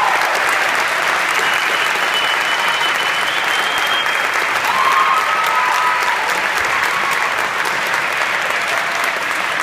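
Audience applauding steadily, with a few voices faintly heard over the clapping.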